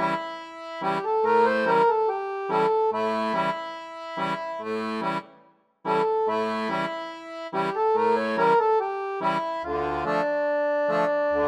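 Background instrumental music: a short, bouncy reed-like phrase with a bass note on each beat, repeated over and over. It breaks off for a moment about halfway through, then starts again.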